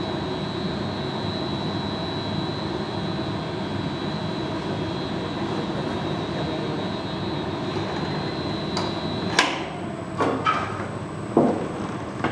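Steady rushing noise of a gas-fired glassblowing glory hole while a piece is reheated in it, with a thin high whine that stops about nine seconds in. After that come a few sharp metal clanks as the steel blowpipe is carried to the bench and laid on its rails.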